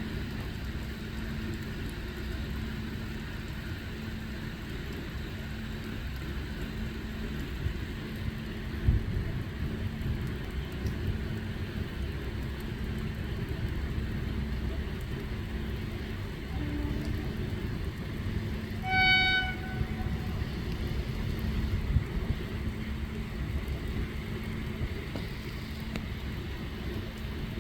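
Indian Railways train rumbling steadily in heavy rain, with a steady low hum. About two-thirds of the way in the train horn sounds once, a short single-note blast of about a second.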